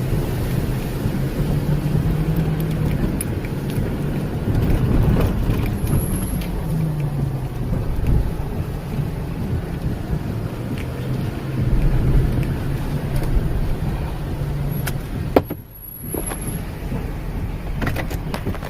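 Steady low hum of a vehicle engine running, under a rushing noise of storm wind and rain. The sound cuts out briefly with a click near the end.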